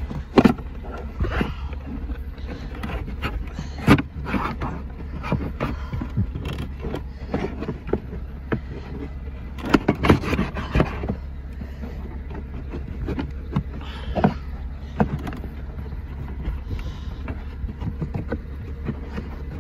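Carpeted plastic trunk trim cover being pried and pulled free: irregular scraping and knocking, with louder knocks about 4, 10 and 14 seconds in, over a steady low hum.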